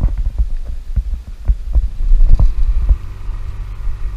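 Small boat under way: a steady low motor hum under irregular low thumps of wind buffeting the microphone.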